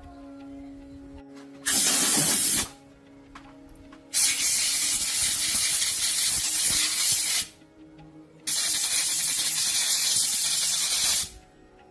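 Pressurised spray hissing in three bursts: a short one about two seconds in, then two longer ones of about three seconds each.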